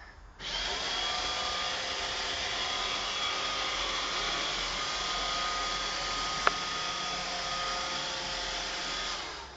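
Roomba 530 robot vacuum running: its motors start suddenly with a short rising whine, then run steadily with one sharp knock about two-thirds of the way through, and wind down near the end.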